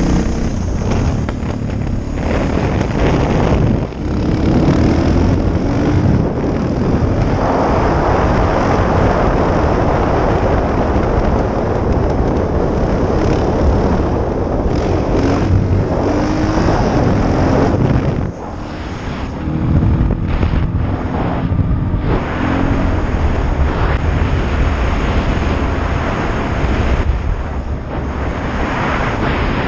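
Suzuki DR650SE's single-cylinder four-stroke engine breathing through an FMF Powerbomb header and FMF exhaust, pulling hard under way. The revs climb in several rising sweeps with brief dips between them as it works up through the gears, and heavy wind noise covers it at speed in the middle.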